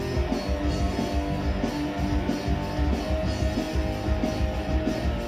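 Rock music with guitar and drums playing an instrumental passage, with no singing.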